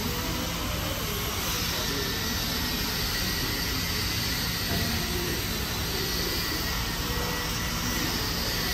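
ER20 diesel-electric locomotive running steadily, with a continuous engine drone and a high whine over it.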